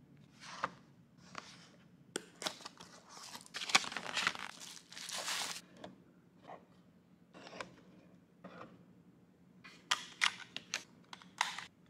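Cardboard box and packaging rustling and crinkling as a small pocket radio is taken out, loudest in the first half, then sharp plastic clicks near the end as the radio's case and battery compartment are handled.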